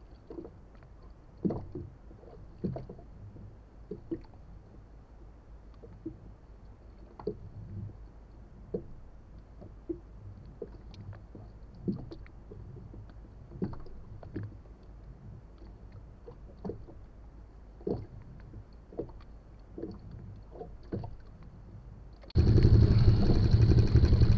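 Small irregular knocks and slaps of calm water against an inflatable boat's hull, about one a second, over quiet sea. About two seconds before the end this gives way suddenly to a loud, steady rumble of wind on the microphone.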